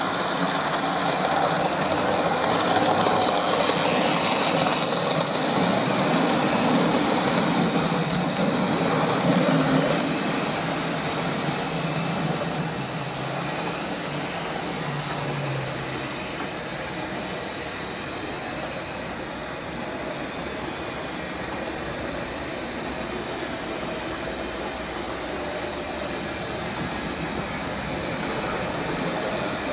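Model railway train running on the layout: the locomotive's small electric motor humming and its wheels rattling over the track. It is louder for the first ten seconds or so, then lower and steady.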